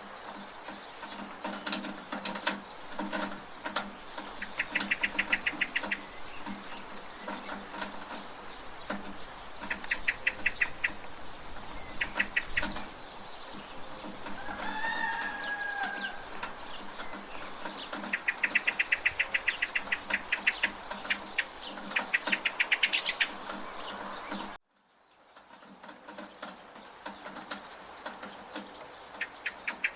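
Village rain ambience: a steady wash of rain and gutter water, with chickens and other birds calling over it. There are several short bursts of rapid chattering calls and one descending call about halfway through. The whole sound cuts out for about a second roughly two-thirds of the way in, then resumes.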